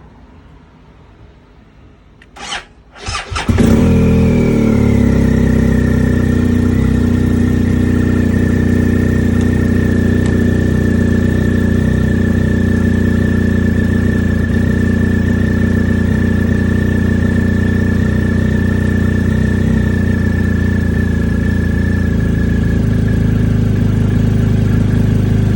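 2020 BMW R 1250 GS Adventure boxer-twin engine cranking briefly, firing about three and a half seconds in and then idling steadily with a steady high whine over it. The bike has an intermittent hard-start problem, and this attempt comes right after a failed one.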